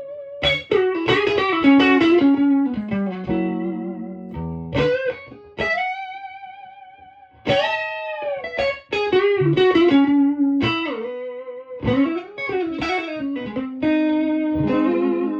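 Electric guitar on its neck pickup played through a Victoria 35310 tweed amp, a 5E7 Bandmaster clone with three 10-inch Jensen P10R speakers. It plays single-note lead phrases with string bends and vibrato and a few chords. About four seconds in, one note is left ringing and fades away before the playing picks up again.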